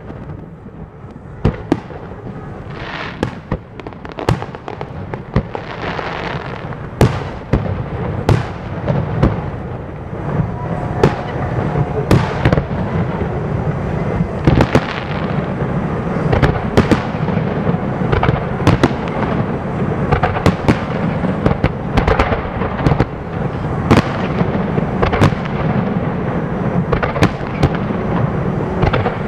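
Aerial fireworks shells bursting in rapid succession: a stream of sharp bangs over a continuous rumble, growing thicker and louder from about ten seconds in.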